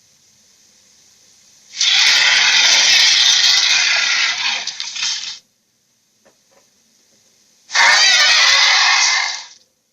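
Two harsh, hissing dragon roars used as sound effects: a long one of about three and a half seconds, and a shorter one of about two seconds near the end. Each starts and cuts off abruptly.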